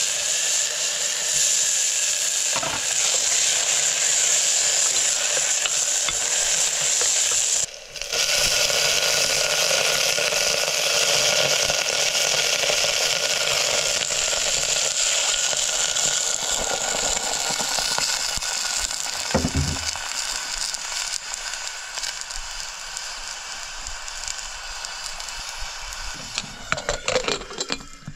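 Hot oil sizzling hard in an aluminium pressure cooker as chopped greens and then beans fry in it. It grows quieter in the last third, and a few metal clicks near the end come as the lid is fitted.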